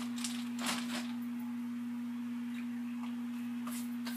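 A steady electrical hum, one even low tone, with a few faint clicks in the first second from a plastic container being handled.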